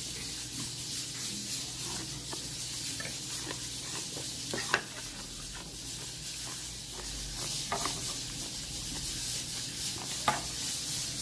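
Steady hiss of room noise with a few sharp clicks of metal chopsticks against the serving plate, the loudest a little before halfway.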